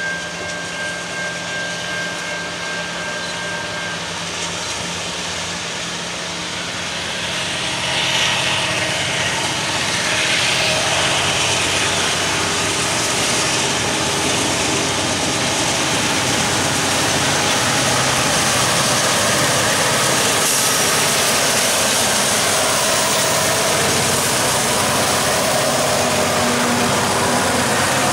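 Diesel-electric freight locomotives, an EMD SD70ACC leading Union Pacific GE AC44CW units, working under load as they approach and pass with exhaust smoking. The engine sound grows louder about eight seconds in as the locomotives draw near, then the steady rumble of the engines and the wheels of the freight cars on the rail carries through.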